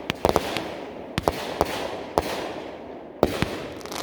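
Fireworks going off: a quick, uneven string of sharp bangs with crackling between them, pausing briefly about three seconds in before more bangs.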